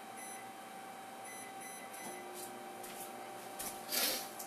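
Microwave oven keypad beeping: one short beep, then three quick beeps about a second later, then the oven starts running with a steady low hum. Near the end there is a louder rustling clatter.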